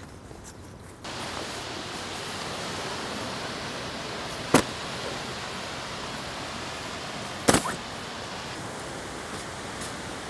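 Steady rush of surf on a beach, starting abruptly about a second in, with two sharp knocks about three seconds apart.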